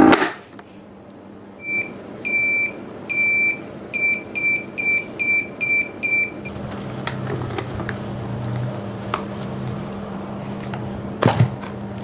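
Countertop vacuum sealer beeping during its heat-sealing cycle while the lid is held down: about ten short, same-pitched beeps over some five seconds, followed by a low steady hum. A couple of sharp clicks near the end as the lid is unlatched and opened.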